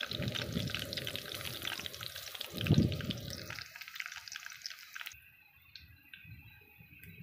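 Sliced garlic frying in hot oil in a metal wok, a dense crackling sizzle, with a low thump about three seconds in. The sizzle drops away abruptly about five seconds in, leaving a much fainter sound.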